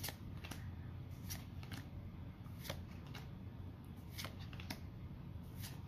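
Pokémon trading cards being flipped through by hand, one card at a time slid from the front of the stack to the back, giving soft, sharp card flicks at an uneven pace of roughly one a second.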